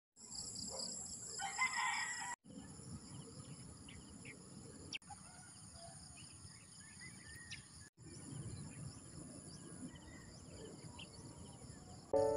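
Countryside ambience: a steady high-pitched insect drone with scattered bird chirps, and a rooster crowing briefly about a second and a half in. The sound breaks off abruptly twice, once at about two and a half seconds and again near eight seconds.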